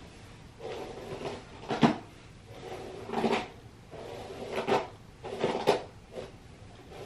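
A hairbrush drawn through long, wavy hair: about five swishing, rasping strokes, roughly one a second, each building to a sharper scrape at its end.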